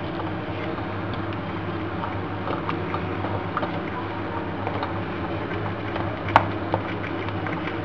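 Wooden spatula stirring minced meat, onion, carrot and tomato in a frying pan of simmering liquid: light scrapes and small taps against the pan over a steady low hum, with one sharper knock about six seconds in.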